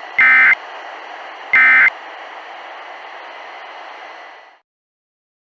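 Emergency Alert System end-of-message data tones: two short, loud warbling data bursts about 1.4 s apart, closing a three-burst sequence. They sound over steady weather-radio static, which cuts off suddenly about four and a half seconds in.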